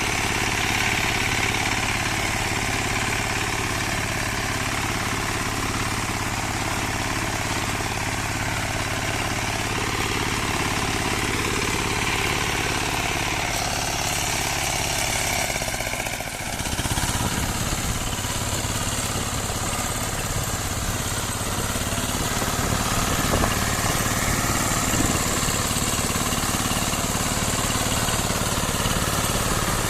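Zubr walk-behind tractor engine running steadily while its rotary tiller works the soil. About halfway through the sound dips for a moment, then comes back rougher and more rattly.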